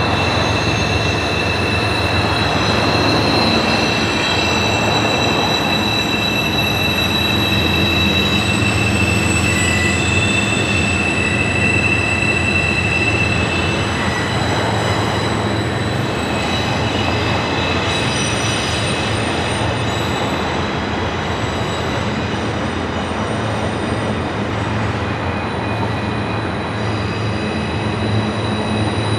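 A passenger train's cars rolling steadily past, their steel wheels squealing against the rails in several steady high tones over a continuous rumble.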